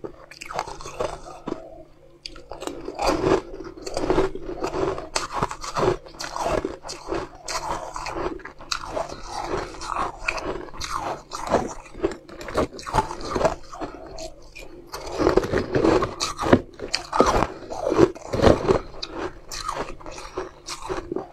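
Biting and chewing a hard, frost-coated blue ball of food: dense, irregular crunches, several a second, loudest in a cluster near the end.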